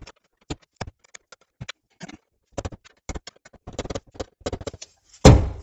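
Light metallic clicks and scrapes as a flathead screwdriver tip is set against the tabs of a fuel pump locking ring. Near the end a heavy mallet strikes the screwdriver once, hard, to knock the ring round.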